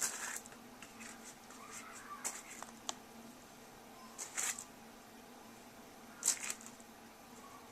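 A few short scuffing handling noises, about one every two seconds, with a sharp click about three seconds in, over faint room tone.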